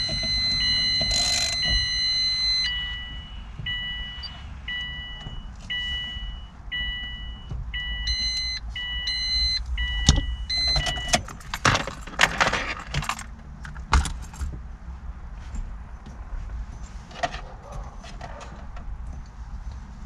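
Subaru WRX's dashboard warning chime sounding a repeating two-note pattern, high then low, about once a second, and stopping about eleven seconds in. A few seconds of metallic clicks and rattles follow, from keys and steering-hub parts being handled.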